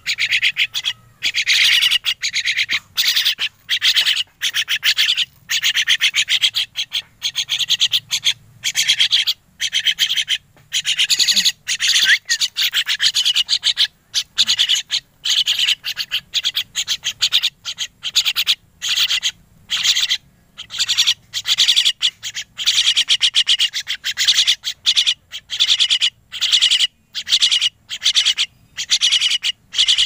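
Young crested mynas giving loud begging calls, repeated in short bursts one after another with only brief pauses.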